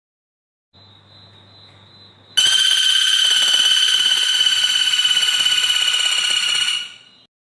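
A bird's loud, steady, high-pitched buzzing trill that starts suddenly, holds for about four and a half seconds and cuts off abruptly. A faint high tone with a low hum comes just before it.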